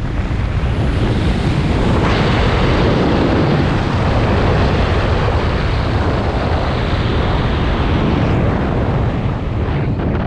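Loud wind rushing over the microphone of a speed flyer's body-mounted camera in fast, low flight, the airflow growing stronger about two seconds in.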